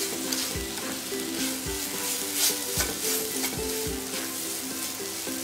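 A spatula stirs and scrapes chopped nendran banana and grated coconut around a hot non-stick frying pan, with a light sizzle under the repeated scrapes. Soft background music plays underneath.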